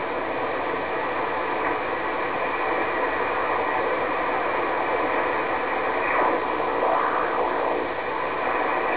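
Band noise from an HF ham transceiver's speaker: a steady static hiss held inside the narrow sideband voice passband while the receiver is tuned down the 75-metre band in lower sideband on a G5RV antenna. Faint sliding tones drift through about six seconds in.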